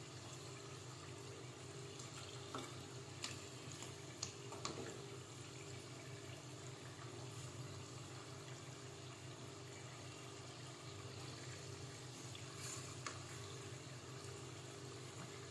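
Spring-roll-wrapped rice turon deep-frying in a pot of hot oil, a steady low sizzle. A wooden spatula knocks lightly against the pot a few times in the first five seconds and again near the end while the rolls are turned.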